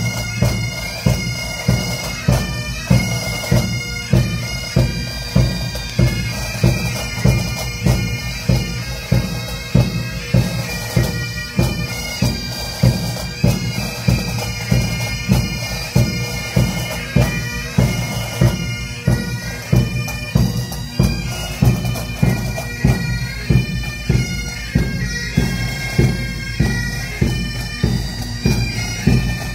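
Highland pipe band playing: massed bagpipes carry a melody over their steady drone, with a regular drum beat about once every two-thirds of a second.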